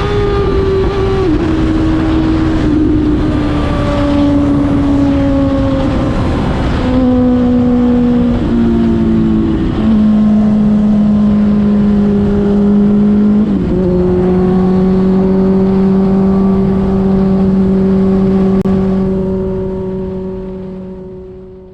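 Suzuki GSX-R1000 K5 inline-four running through an open exhaust with no dB-killer, cruising at steady revs. Its pitch drops suddenly a couple of times and sinks slowly in between. The sound fades out near the end.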